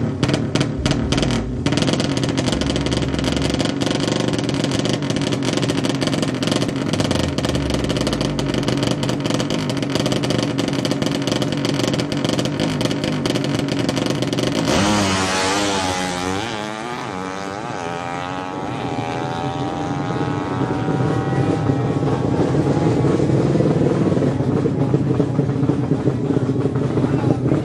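200cc horizontal-cylinder ('sleep engine') drag-bike engine, blipped rapidly and then held at high revs on the start line. About fifteen seconds in, the bike launches: the pitch climbs again and again through the gear changes and fades as it runs away down the strip.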